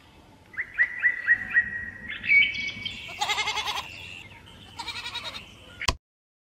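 A run of short rising bird chirps, about four a second, then a held high call and two quavering bleats, the first longer than the second. A sharp click near the end, after which the sound stops suddenly.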